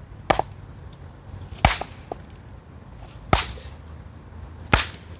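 Wood being chopped: four sharp strikes on wood, evenly spaced about a second and a half apart, over a steady high chirring of crickets or other insects.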